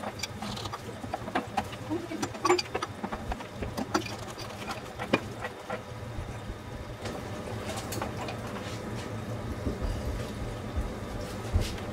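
Scattered clicks and metallic taps of a pipe wrench and copper plumbing fittings being handled and unthreaded at the top of a gas water heater, a few sharper knocks among them, over a steady low hum.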